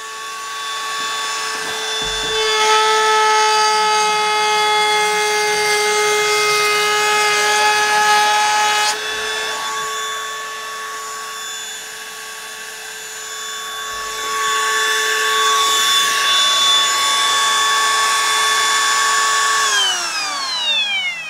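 Einhell TP-ET 18 Li BL cordless brushless palm router whining steadily at about 30,000 RPM, louder and rougher in two stretches while its chamfer bit cuts along the edge of a pine board. Near the end it is switched off and its pitch falls slowly as the motor spins down; it ramps down gradually rather than braking to a stop.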